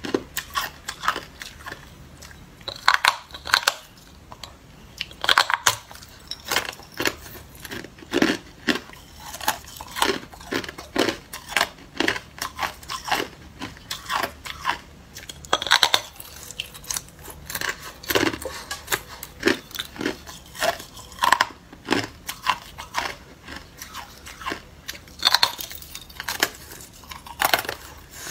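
Hard clear ice being bitten and chewed: a steady run of sharp, irregular cracks and crunches as teeth snap pieces off a large slab and grind them up.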